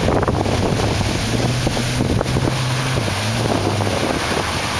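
Wind buffeting the microphone, with a low steady drone underneath from about a second in until near the end.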